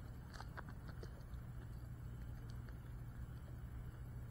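Quiet background: a faint steady low hum with a few light ticks, most of them in the first second.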